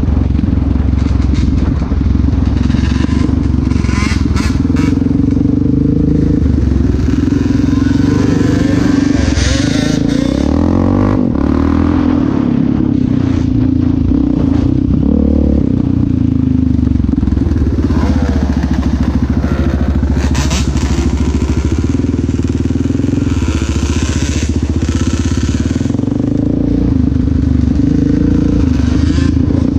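Yamaha Raptor 700R quad's single-cylinder engine running under way on a dirt trail, its pitch rising and falling with the throttle, mixed with knocks and rattles from the machine over rough ground.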